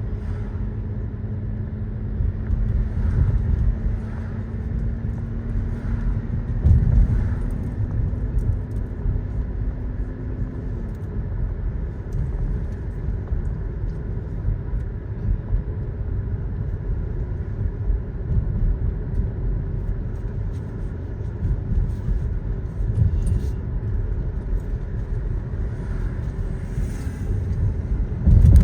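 Road and engine noise inside a moving car: a low rumble throughout, with a steady hum that rises slowly in pitch and then drops away about eleven seconds in. A louder bump comes about seven seconds in.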